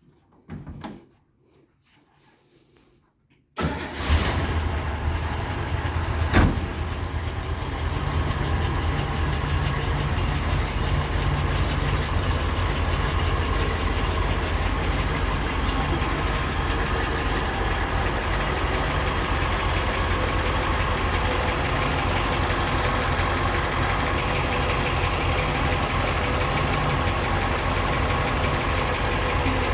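1963 Corvette's 327 small-block V8 starting: it catches abruptly about three and a half seconds in and then idles steadily, with one sharp click a few seconds after it fires.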